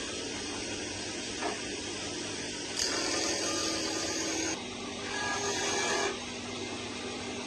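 A small motor or power tool runs in two bursts of about a second and a half each, a few seconds in, over a steady background hiss.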